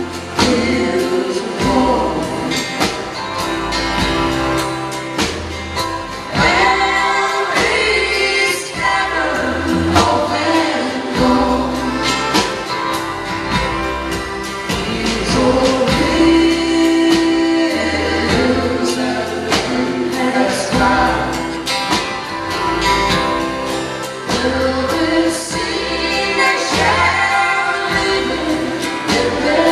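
A live band playing, with several voices, women's and men's, singing together in harmony over acoustic guitars, mandolin and accordion. It is heard through the hall's sound system from among the audience.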